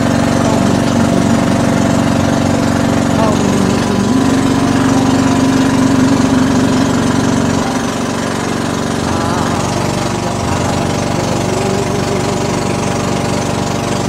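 Engine of a motorized outrigger boat (bangka) running steadily under way, its note rising slightly about four seconds in.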